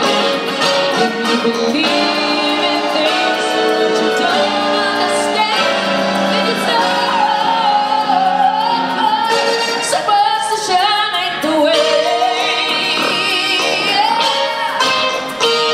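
Live band: a woman sings into a microphone over keyboard and guitar accompaniment, the keyboard a Roland Juno-DS. Her voice slides between notes and holds a wavering, vibrato note about two-thirds of the way through.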